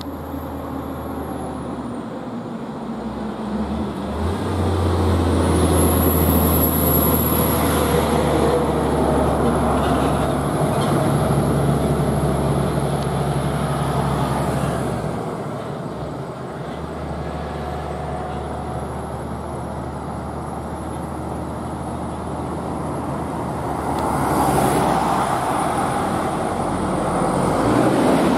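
Heavy diesel trucks passing on a highway. A loaded truck's engine grows loud about four seconds in and drones low for about ten seconds as it goes by, then fades to road noise. Another vehicle comes up loud near the end.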